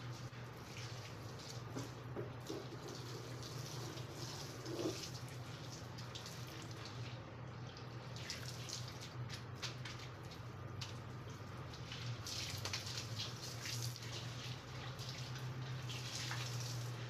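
Water running from a garden hose and splashing on a tiled floor while a mop is pushed across the wet tiles, the swishing coming and going, over a steady low hum.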